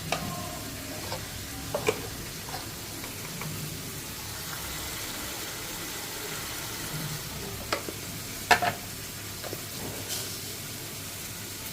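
Spice paste and boiled eggs frying in oil in a pan, a steady sizzle, stirred with a spatula that clicks and knocks against the pan a few times, loudest about eight and a half seconds in. This is the masala being fried down for egg curry.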